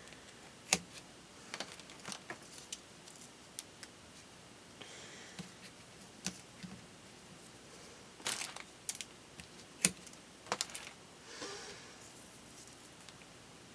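Small taps, clicks and brief rustles of paper craft work: strips of dimensional foam tape being peeled from their backing and pressed onto paper. Three sharper clicks stand out, with two short soft rustles between them.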